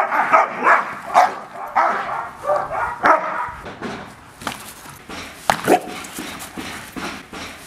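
Two leashed guard dogs barking at an agitator during aggression training, in rapid overlapping barks. After about three and a half seconds the barking thins to a few separate barks.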